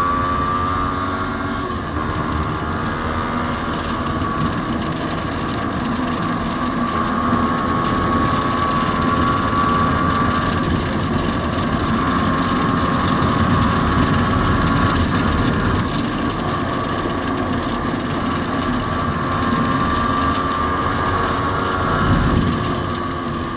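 Yamaha Sniper 150's single-cylinder four-stroke engine through an aftermarket JVT exhaust pipe, running under way at cruising revs. Its pitch falls at the start, then rises and falls gently, over a low rumble of wind.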